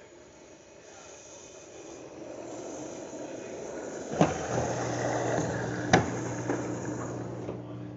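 Washing machine running while it fills and drains at once, a fault: a rush of water that grows louder, two sharp knocks about four and six seconds in, and a steady low hum from about halfway through.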